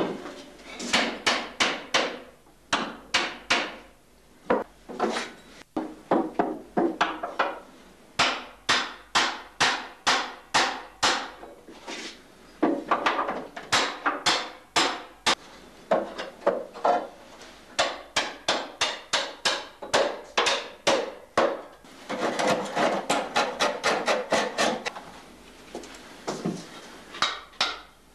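A cooper's hammer striking a hoop driver to drive the hoops down on a wooden barrel: runs of sharp blows, about three a second, broken by short pauses. About two-thirds of the way through there are a few seconds of steady scraping.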